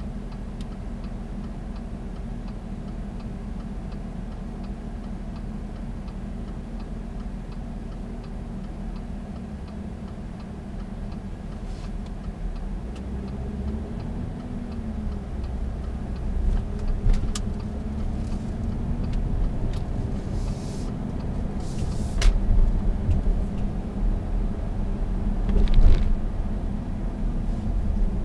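Cabin sound of an Audi Q7's 3.0 TDI V6 diesel idling at a junction with the turn-signal indicator ticking steadily. About twelve seconds in it pulls away and the engine note rises as the car accelerates, followed by road noise and a few short knocks from bumps in the road surface.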